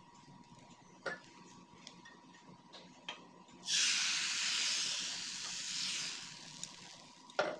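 Crepe batter sizzling as it is ladled into a hot non-stick frying pan: a hiss that starts sharply and fades away over about three seconds. A few light knocks come before it, and a sharp knock near the end.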